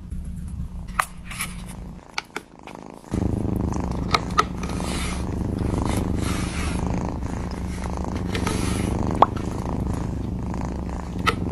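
Domestic cat purring: a steady low rumble, softer at first and louder from about three seconds in, with a few scattered small clicks over it.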